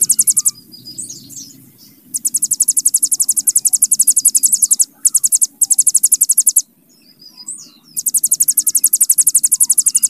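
Hill prinia (ciblek gunung) singing its long, rapid buzzing trill (the 'bren'), about ten dry pulses a second, in stretches of a few seconds. Short high chirps fill the pauses about a second in and again near seven and a half seconds.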